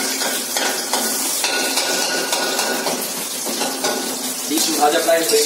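An egg frying in hot oil in a metal wok, sizzling steadily, while a metal spatula scrapes and clinks against the pan as the egg is turned over.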